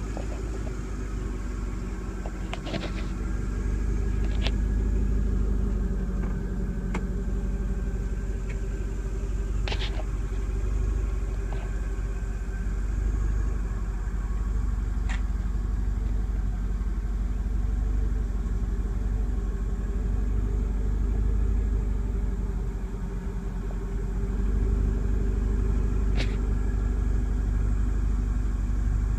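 2000 Corvette's 5.7-litre LS1 V8 idling steadily through a Corsa exhaust, a low rumble. A few sharp clicks are heard here and there.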